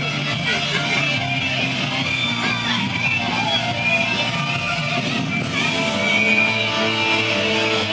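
Rock music with strummed electric guitar, played loud over a sound system; longer held notes come in about five and a half seconds in.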